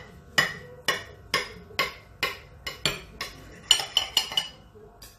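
Knife sawing down through a stack of pancakes, the metal blade and fork clicking against a ceramic plate about twice a second, each click ringing briefly, with a quicker run of clicks near the end.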